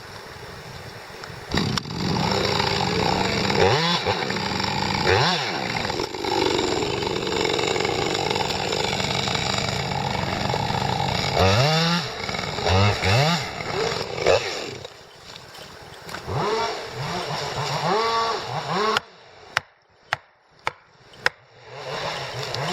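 Chainsaw running and cutting, its engine revving up and down several times. Near the end the saw drops away and a few sharp clicks sound.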